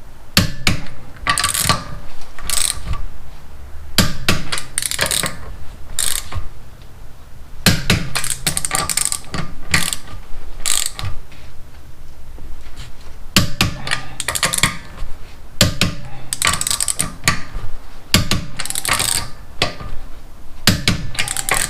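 Ratcheting torque wrench clicking in repeated strokes as wheel lug nuts are tightened to 79 foot-pounds in a star pattern.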